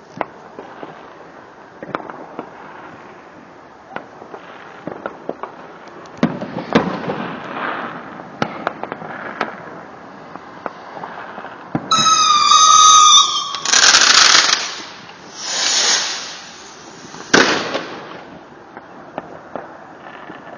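Fireworks going off: scattered pops and crackles at first, then past the halfway point a loud warbling whistle, two loud rushing bursts, and a sharp bang near the end.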